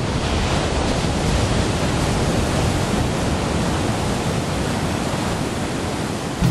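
Ocean surf: breaking waves heard as a steady, even rush of water noise.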